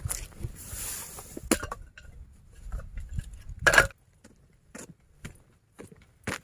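Scattered clinks and knocks of small hard objects being handled, with a short hiss early on and one louder knock a little before the four-second mark.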